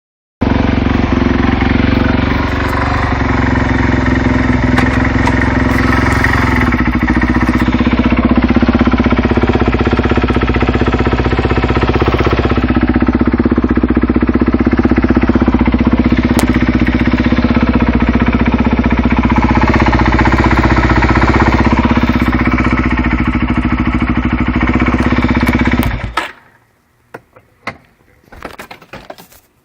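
Suzuki DR-Z400SM single-cylinder four-stroke engine, with an FCR carburettor and a full Yoshimura exhaust, running at a steady idle with a knocking noise that the owner takes for normal valve noise, the valves having checked out in spec. The engine cuts off suddenly near the end, leaving a few faint clunks.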